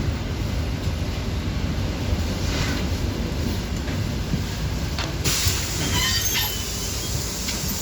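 City bus in motion: a steady low rumble of engine and road. About five seconds in, a loud hiss starts, with short high-pitched squeals over it.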